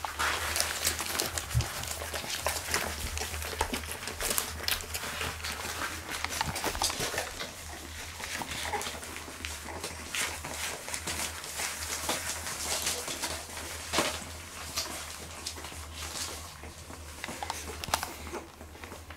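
Cotton de Tulear dog and puppies shifting about on sheets of newspaper: the paper rustles and crinkles, with scattered small taps and clicks and a couple of sharper knocks near the end.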